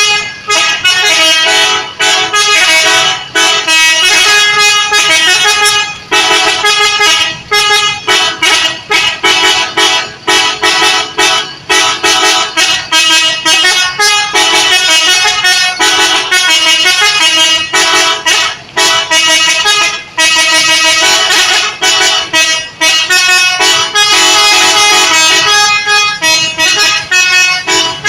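Indonesian 'telolet' bus horn, a multi-trumpet air horn, playing a loud tune of stepped notes over and over, in phrases broken by brief gaps.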